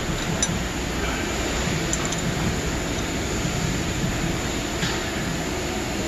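Steady, even rushing background noise of a large workshop, with a few faint light metal clicks as the bolts of a camshaft retainer plate are threaded in by hand on an engine block.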